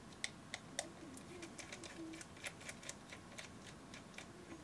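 Light, irregular clicking and ticking, several clicks a second, from a precision screwdriver turning out the tiny screws that hold the autofocus motor on a compact camera's lens assembly.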